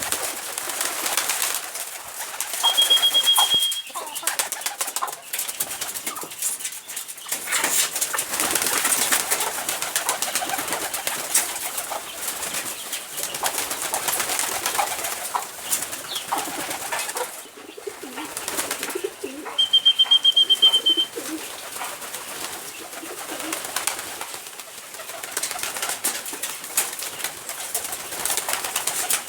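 Poultry feeding at a plastic bottle feeder: a steady patter of pecking clicks and rustling with soft low calls. A short high-pitched trill sounds twice, about three seconds in and again about twenty seconds in.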